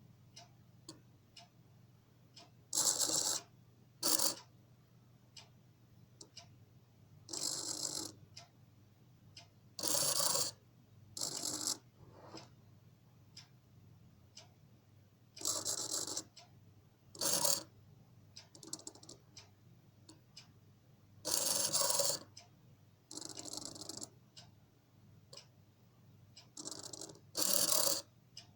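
Small hobby servo motors of a 3D-printed animatronic eye whirring in short bursts of half a second to a second, every few seconds, as the eye and eyelids move, with faint clicks between the bursts and a steady low hum underneath.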